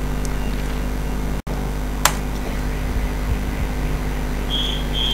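Steady low electrical hum with hiss from the recording setup, cut out briefly by a dropout about one and a half seconds in. A single sharp keyboard click about two seconds in, and two short high-pitched beeps near the end.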